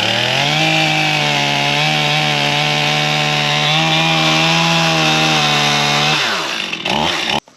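Two-stroke chainsaw revving up to full throttle, holding high speed for about five seconds, then dropping back toward idle; the sound cuts off abruptly near the end.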